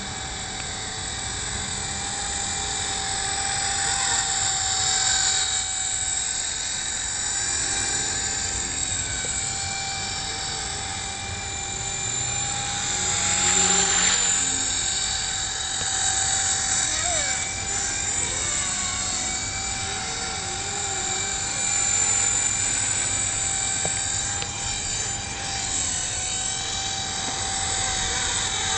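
Blade CP Pro 2 electric collective-pitch RC helicopter in flight, its motor and rotors whining steadily with small shifts in pitch as it manoeuvres. The sound swells about halfway through as it flies closer.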